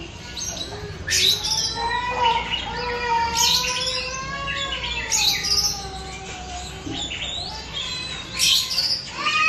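Young oriental magpie-robin (kacer) learning to sing: several sharp high chirps a couple of seconds apart, over a long, wavering, drawn-out call.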